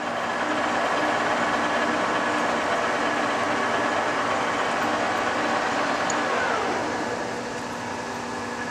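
TOS B40 gear-head toolroom lathe running under power at 250 RPM, a steady mechanical hum of spindle and gearing. About six seconds in a whine falls in pitch and the sound eases off as the spindle slows for a speed change.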